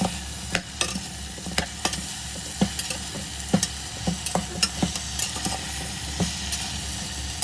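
Chicken feet being stirred in a sizzling pan with soy sauce and fish sauce. The utensil knocks irregularly against the pan, a few times a second, over a steady sizzle.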